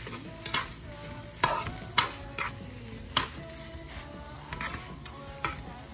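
A metal spoon stirring fried rice in a frying pan, scraping and knocking against the pan about five times over a low sizzle. Background music plays underneath.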